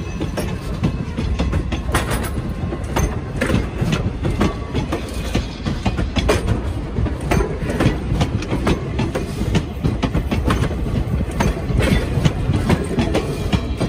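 Wooden passenger coaches rolling slowly past close by: steel wheels clacking over the rail joints with a steady low rumble from the trucks.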